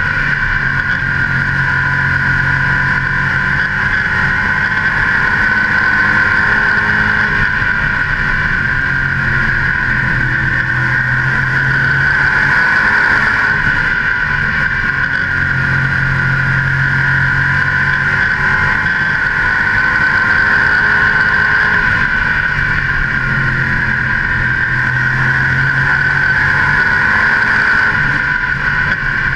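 Modified race car's V8 engine running hard at racing speed, picked up close by a hood-mounted camera with wind rush. The engine note swells and eases as the throttle comes on and off through the turns.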